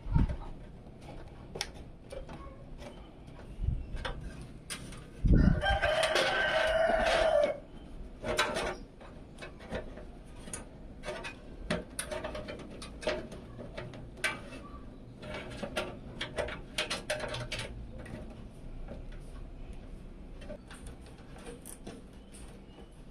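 A rooster crows once, a single drawn-out call of about two seconds, starting after a thump about five seconds in. Light clicks and taps come and go throughout.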